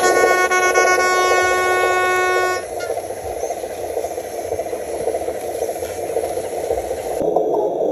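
A model truck's horn sounding one steady note for about two and a half seconds, then cutting off, over the steady running of remote-control trucks.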